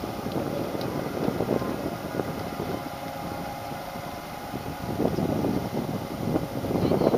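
Wind buffeting the microphone: a rough, uneven low rumble that grows louder about five seconds in.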